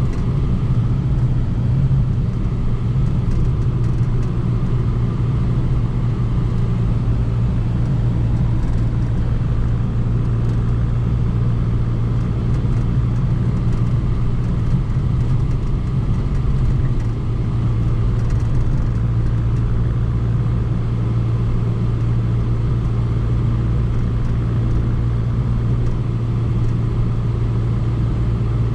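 Volkswagen Golf GTI Mk6 turbocharged 2.0-litre four-cylinder exhaust droning steadily while driving at an even engine speed, with no sharp revving.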